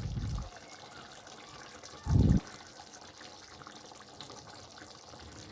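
Masala curry gravy simmering faintly in a pan, with a short low thud about two seconds in.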